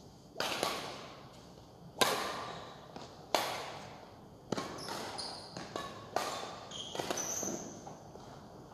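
Badminton rackets striking a shuttlecock in a rally, about half a dozen sharp hits roughly a second apart, each ringing on in the echo of a large hall.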